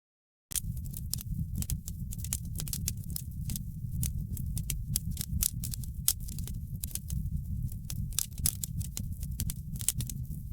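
Wood fire crackling in a fireplace: many sharp, irregular pops and crackles over a steady low rumble of burning. The sound drops out completely for about half a second at the very start, then comes back.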